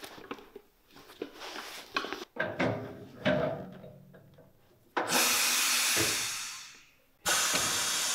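Shoe-repair bench work: a series of knocks and taps, then a bench power tool running for about two seconds and winding down, starting again near the end.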